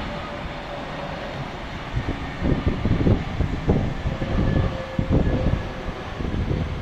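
Airliner's jet engines on final approach, a steady whine over a low rumble, with wind buffeting the microphone in irregular gusts from about two seconds in.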